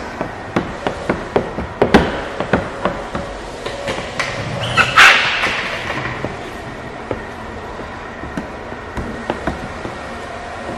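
Hand-work noises from a paint protection film install: a run of irregular sharp clicks and taps over the first three seconds, then a brief loud spray of tack solution from a spray bottle about five seconds in, followed by a few scattered ticks.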